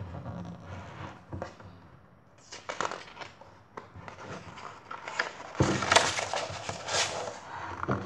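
Stiff pages of a hardcover picture book being handled and turned, rustling and crackling in irregular bursts, loudest about six to seven seconds in.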